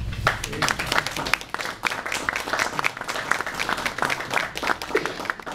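Audience applauding, a dense patter of hand claps that begins to thin out near the end.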